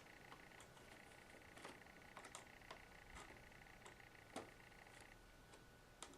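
Faint, scattered clicks and ticks of a small flathead screwdriver prying the plastic screen bezel of an HP Pavilion dm4 laptop loose along its seam, a little at a time, over quiet room tone.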